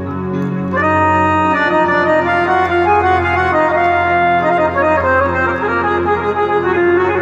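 Instrumental interlude of Tajik ghazal music played on electronic keyboards with an organ-like voice. Held notes and chords sound over a steady bass, and a fuller chord comes in just under a second in.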